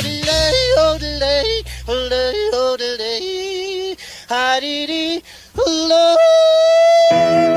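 Yodeling: a singing voice flipping quickly between low and high notes in short phrases, ending on a long held high note about six seconds in. A low sustained backing note runs under the first few seconds.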